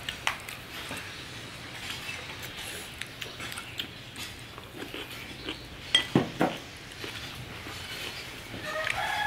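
Spoon and dishes clinking during a meal: scattered light clinks, with a few sharper knocks about six seconds in.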